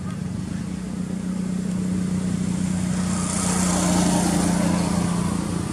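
An engine runs steadily with a constant low hum. It grows louder toward about four seconds in, where a hiss joins it, then eases off a little.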